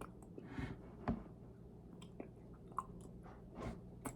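A person chewing food, with scattered small wet mouth clicks and a few short smacks; the loudest comes about a second in.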